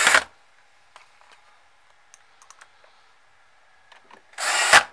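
Electric screwdriver running in two short bursts, one ending just after the start and one near the end, with faint small clicks of handling in between.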